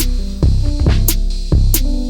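Background electronic music with a steady drum beat and sustained synth notes.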